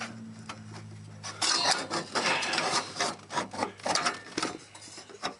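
Refrigerator condenser fan and its motor being worked out of a cramped metal compartment: irregular scraping and rubbing, with light knocks. A low steady hum stops a little over a second in.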